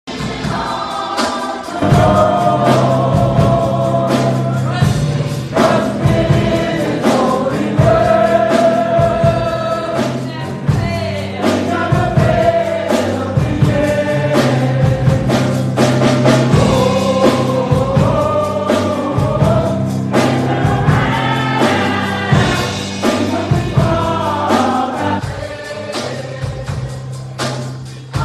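Gospel choir singing a song with instrumental backing: held bass notes and a steady beat under the voices.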